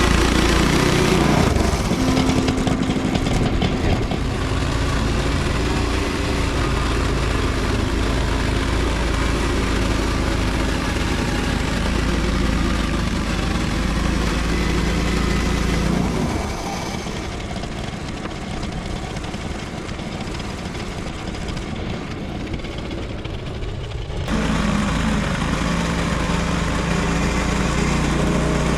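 Small gas engine of a Frontier OS23 portable bandsaw sawmill running steadily. About seventeen seconds in the sound drops and its low hum thins out for roughly seven seconds, then comes back up.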